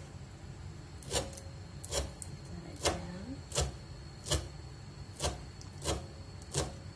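Kitchen knife chopping mangkokan (tapak leman) leaves on a wooden cutting board, eight even knocks of the blade on the board, about one every three-quarters of a second.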